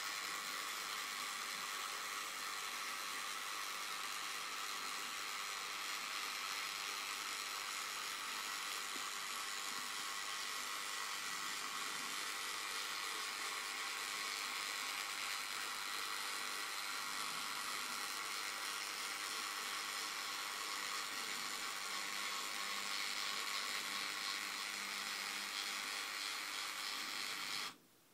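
Yaesu G-450C antenna rotator's motor and gear train whirring steadily as the rotator turns under power. It cuts off suddenly just before the end, as the drive is switched over to the other direction.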